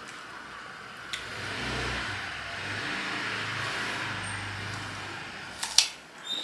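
A road vehicle passing outside: engine hum and tyre hiss swell up about a second in, hold, then fade away. Near the end comes a single sharp crunch as a crisp rose apple is bitten into.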